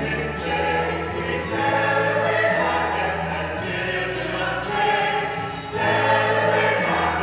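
Background music: a choir singing a gospel-style hymn, with held bass notes and chords changing every second or two.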